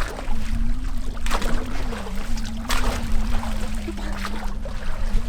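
Water splashing and trickling in three short bursts, over a steady low hum.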